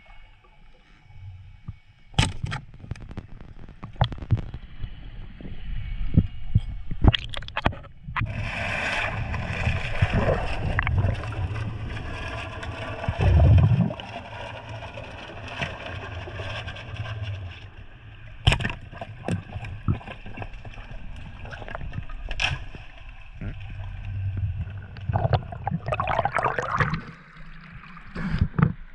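Muffled underwater noise picked up through a diver's camera housing: water gurgling and rushing, with scattered sharp clicks and knocks. Near the end, splashing as the diver breaks the surface into choppy water.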